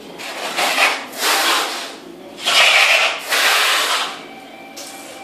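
Steel trowel scraping across a concrete floor as tile adhesive is spread and combed, in about five long strokes, the loudest about halfway through.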